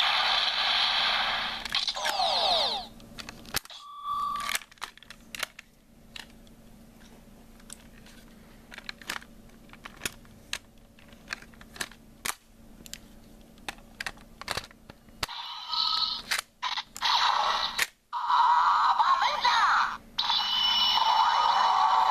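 Mobirates (Gokai Cellular) Ranger Key toy playing electronic sound effects and voice calls through its small speaker as a Ranger Key is inserted and turned. About four seconds in there is a short beep, then a quieter stretch of plastic clicks from handling the key and toy, and the toy's sound effects start up loud again about fifteen seconds in.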